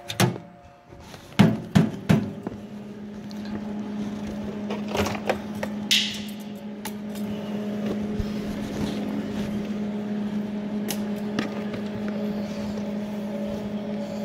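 Several sharp knocks and clatters as cables and gear are handled, then a steady machine hum starts about a second and a half in and keeps running.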